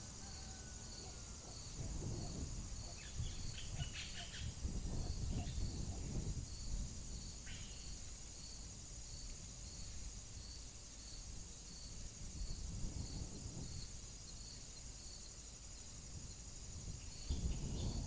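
Steady high insect chirring with a pulsed chirp about twice a second, a few short high bird calls around three to four seconds in and again near eight seconds, over low rumbling noise that swells several times and is loudest near the end.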